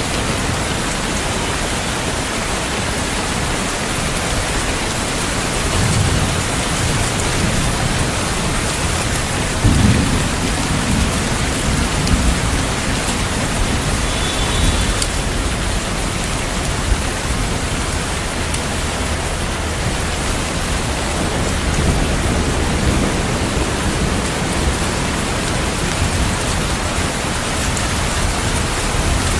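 Heavy rain falling steadily, with rolls of thunder. A low rumble comes about six seconds in, and a louder one starts about ten seconds in and rumbles on for several seconds.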